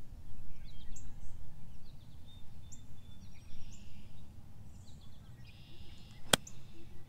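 A golf club striking the ball from the fairway turf: a single sharp click about six seconds in, at the end of a full swing. Before it, faint bird chirps over a low rumble of wind on the microphone.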